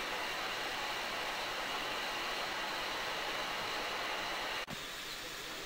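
Steady hiss of steam from a metre-gauge Nilgiri Mountain Railway steam locomotive standing at the platform. Near the end the sound breaks off suddenly and a quieter hiss follows.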